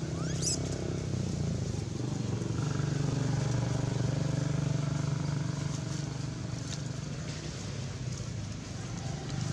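An engine running steadily, a low hum that grows a little louder in the middle. A brief high squeak rising in pitch about half a second in.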